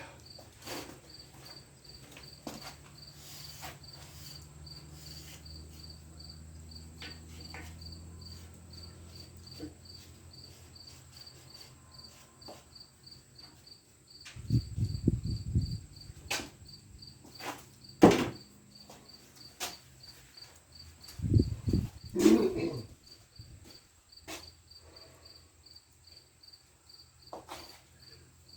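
A cricket chirping steadily in short, evenly spaced pulses, about two a second. Over it come scattered clicks and knocks of parts and tools being handled, with two short low thuds around the middle and a sharp knock, the loudest sound, about two-thirds of the way through.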